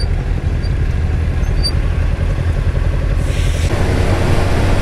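Motorcycle engine running under way, heard with wind rushing over a helmet-mounted microphone; the rush grows fuller and slightly louder a little past three seconds in.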